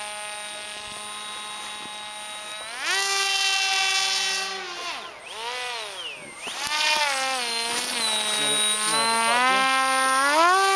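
Motor and propeller of a radio-controlled paramotor running with a steady whine. The pitch rises sharply about three seconds in as the throttle opens, swoops down and back up around the middle, and climbs again near the end.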